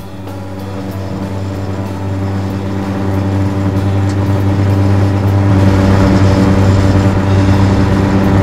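Car interior drone of engine and road noise: a steady low hum over tyre rush, fading in and growing steadily louder.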